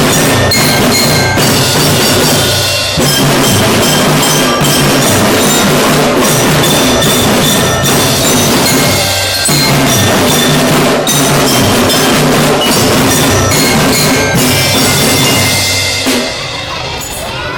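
Children's marching drum band playing: snare and bass drums keep a steady beat while a bell lyre rings out the melody. The playing stops near the end.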